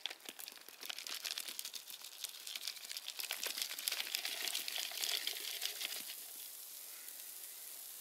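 Spruce resin sizzling and crackling as it is poured onto hot embers: a dense run of sharp crackles over a hiss that swells midway and eases toward the end.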